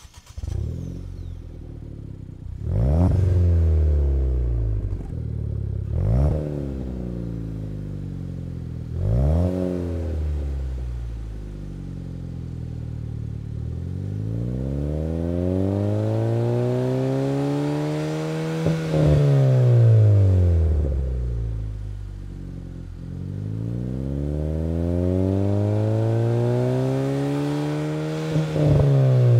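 Ford Fiesta ST's turbocharged 1.6-litre four-cylinder heard from outside through a stainless steel 3-inch aftermarket exhaust: it cranks and starts, idles, is blipped in three short quick revs, then is revved up slowly and let back down twice.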